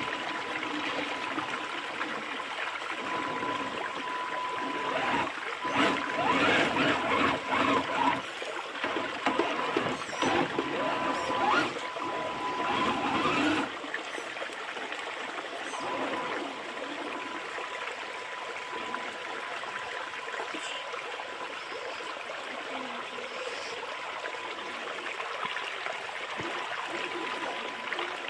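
Shallow stream water running and splashing over rocks, churned by a 6x6 RC crawler, with a faint thin whine from its electric drive that comes and goes. The splashing is louder and busier in the first half, then settles to a steadier, quieter run of water.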